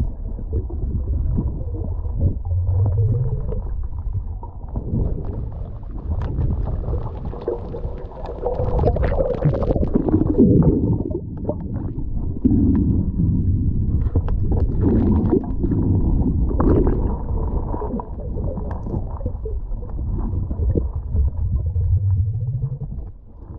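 Underwater sound through a submerged camera: a low, muffled rumble and gurgling that swells and fades every few seconds, with scattered sharp clicks and crackles, most of them in the middle part.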